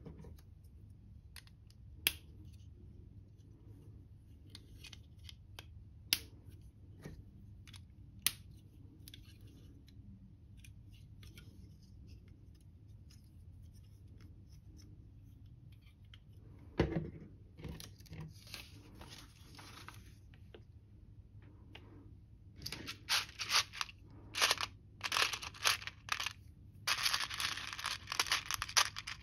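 Plastic LEGO bricks being handled and pressed together, with a few sharp clicks in the first half and a soft knock about halfway. Near the end a hand rummages through loose LEGO pieces in a tray, making a dense plastic rattling and clattering.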